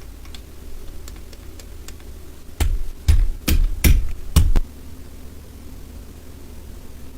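A few faint clicks, then five heavy knocks within about two seconds, from the wireless keyboard and its packaging being handled.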